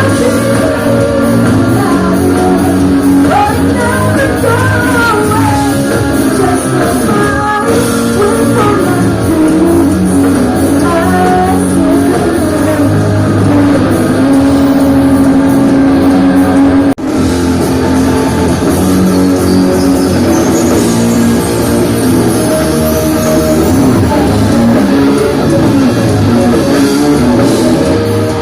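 A live pop-rock band playing loudly with electric guitar and a melodic lead line over the full band. There is a momentary dropout in the sound about two-thirds of the way through.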